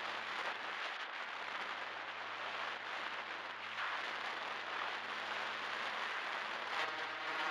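Steady hiss with a faint low hum on the XUav One FPV plane's flight recording. Near the end, a buzzing tone with several evenly spaced pitches sets in.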